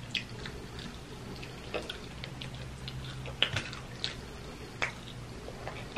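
Close-up eating sounds while chewing chicken wing meat: a scatter of short wet mouth clicks and lip smacks, a few to the second, over a faint steady low hum.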